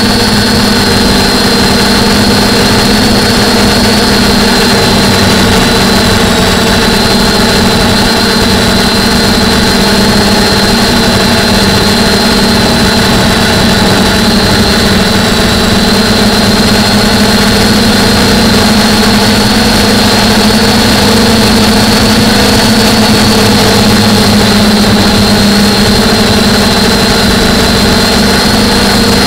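DJI F450 quadcopter's four E300 brushless motors spinning 9.4-inch propellers in flight, picked up by the camera mounted on the airframe: a loud, steady drone with a thin high whine held on top.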